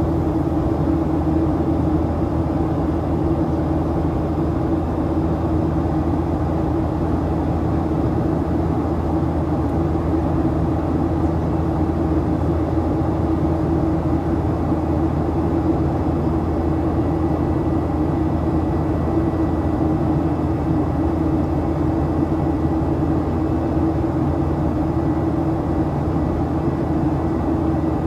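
Steady cabin noise of a Boeing 737-800 in flight: its CFM56-7B jet engines and the airflow make a constant drone with several steady low hums.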